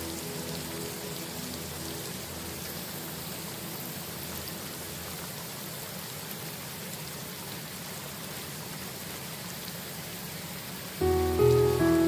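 Steady rain falling, an even hiss of water. Soft piano notes die away in the first second or so, and a louder piano phrase comes in about a second before the end.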